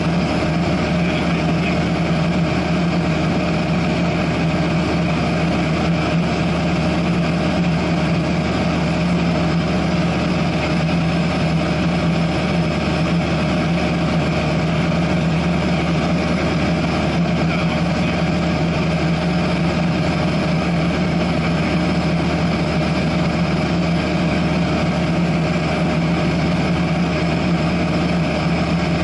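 Cessna 172SP's four-cylinder Lycoming IO-360 engine and propeller running steadily in cruise flight, heard from inside the cabin as a constant drone with a strong low hum.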